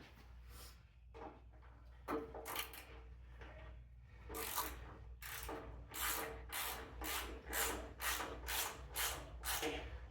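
Hand ratchet wrench ratcheting in short, scratchy strokes as 10 mm fender bolts are tightened. The strokes are sparse at first, then about four seconds in they settle into a steady run of about two a second.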